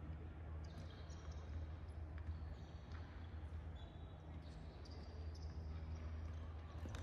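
Quiet room tone of a large gymnasium: a steady low hum, with faint short squeaks and light knocks from shoes shifting on the hardwood floor.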